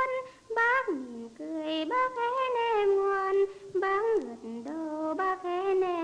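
A single high voice, a woman's or a child's, singing a slow melody in long held notes that slide from pitch to pitch, with little or no accompaniment heard beneath it.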